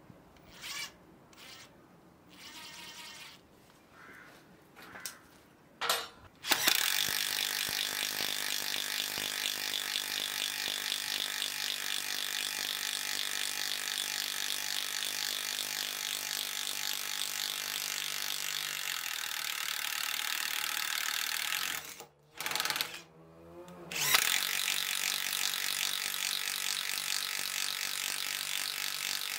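Bosch GDR 12V-105 12-volt cordless impact driver boring into a timber plank with a wood-boring bit. Its motor whines and its impact mechanism rattles steadily under load. It starts about six seconds in, stops briefly with a short blip around twenty-two seconds, then runs on.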